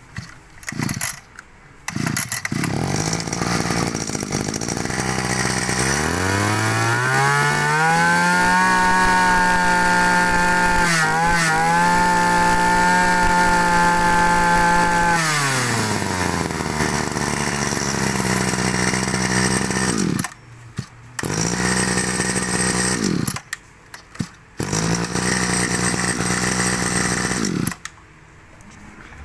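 Kawasaki TG24 24 cc two-stroke brush-cutter engine pull-started, idling, then revved up to high speed and held there for several seconds with a brief stumble before dropping back to idle. The sound breaks off twice for about a second and stops near the end.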